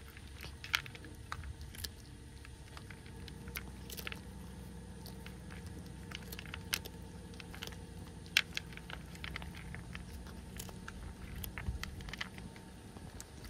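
Cats chewing and crunching their food: irregular sharp crunches and clicks over a low steady background rumble.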